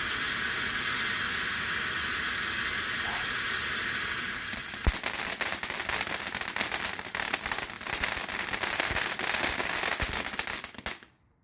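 Phantom Fireworks Twilight Magic fountain burning: a steady spraying hiss that turns into dense crackling about halfway through, then cuts off near the end as the fountain burns out.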